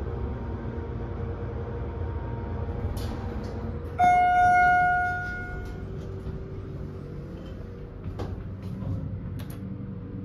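Schindler 300A hydraulic elevator arriving: a steady low hum of the moving car, then about four seconds in a single arrival chime rings out and fades over nearly two seconds, followed by the cab doors sliding open with a few faint clicks.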